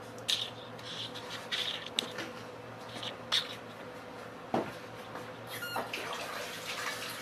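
Wet onion-and-gram-flour batter squelching and clicking as it is worked by hand in an aluminium pot, then a single dull knock about four and a half seconds in. A faint steady hum runs underneath.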